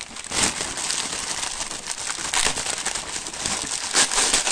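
Newspaper and brown wrapping paper crumpling and crinkling as hands unwrap a packed item, with louder swells of crackling every second or two, the loudest near the end.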